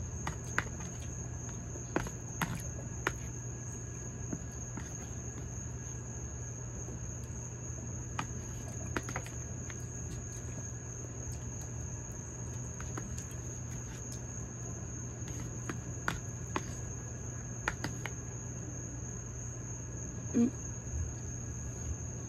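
A continuous high-pitched insect drone of chirring crickets or cicadas over a low steady hum, with scattered light clicks of a metal spoon against a plastic dinner container.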